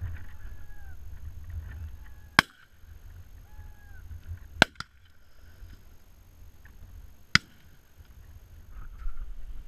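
Three shotgun shots, two to three seconds apart, fired at driven red grouse from a stone shooting butt, with wind rumbling on the microphone.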